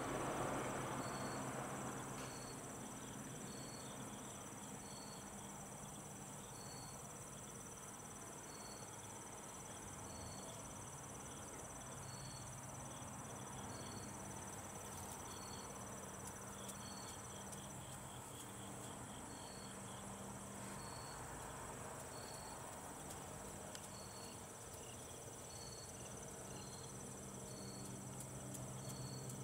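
Crickets and other insects calling: short high chirps about once a second over a steady high-pitched trill, which stops about two-thirds of the way through while a higher hiss-like trill carries on. A faint low hum lies underneath.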